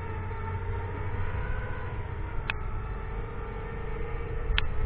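FPV quadcopter's brushless motors and propellers running in flight, a steady droning whine whose pitch drifts slightly. Two brief high-pitched chirps sound, one about halfway through and one near the end.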